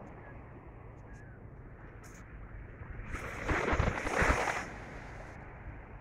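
Wind buffeting the microphone on an open beach, a steady low rumble with the ocean's surf faintly under it. About halfway through, a louder rushing burst rises and falls away over a second and a half.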